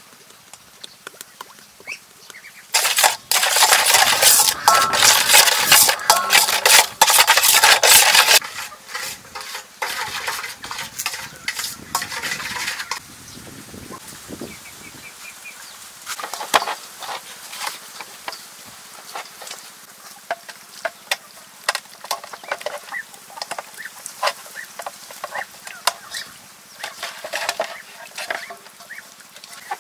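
Marinade being stirred and scraped in a metal bowl, loudest for about five seconds near the start, followed by scattered short clicks and wet handling sounds as a whole duck is rubbed with the marinade.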